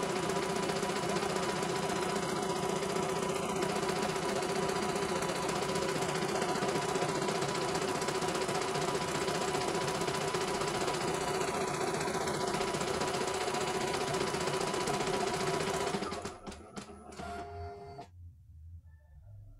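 CNY E900 computerized embroidery machine stitching a test design at steady speed. It stops about 16 seconds in, followed by a few clicks before going quiet.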